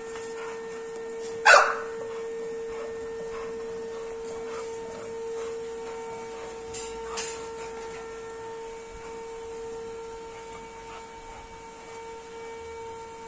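A dog gives one short, loud bark about a second and a half in, and a fainter sound from the dogs follows about seven seconds in. Under it is a steady, even-pitched machine hum.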